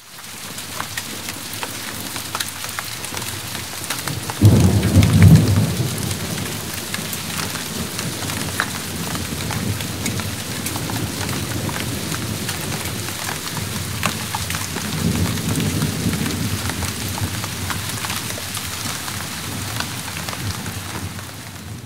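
Steady heavy rain with many individual drops ticking close by. A low rumble of thunder sets in about four seconds in, the loudest moment, and a softer rumble comes around fifteen seconds in.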